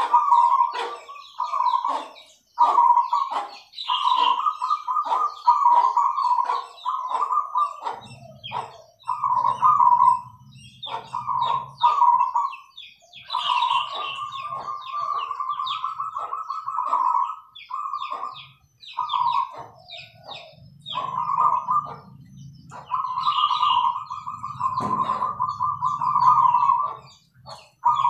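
Zebra doves (perkutut) cooing: repeated runs of rolling, trilled coos, one after another, some drawn out longer than others.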